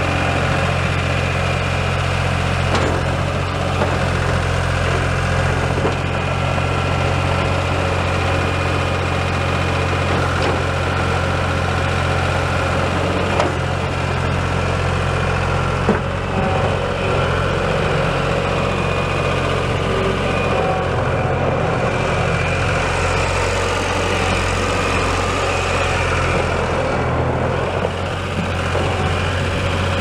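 A New Holland LX885 skid steer's 3.2-litre three-cylinder turbo diesel runs at a steady speed while the machine drives and turns on gravel. A few light knocks can be heard over the engine, the sharpest about halfway through.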